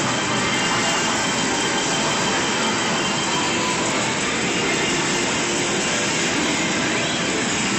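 Steady arcade din: the dense, unbroken noise of many game machines and their music mixed together.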